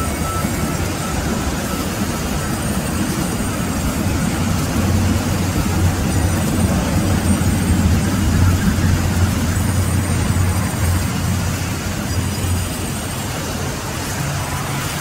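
Industrial sawmill band saw running and cutting through a wooden slab: a steady, loud machine noise with a low hum underneath, growing a little louder through the middle.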